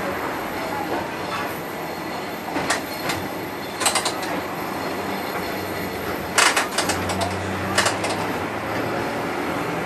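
Rotterdam museum tram 522 running on street track, heard from inside: a steady rumble of wheels on rail, broken by several sharp clicks and knocks, the loudest cluster about six and a half seconds in.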